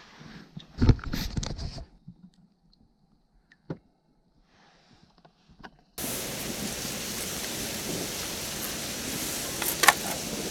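Water sloshing and splashing at an ice hole, with heavy thumps, for about two seconds, then quiet. About six seconds in, a steady even hiss starts, and near the end a plastic tip-up knocks once against the ice.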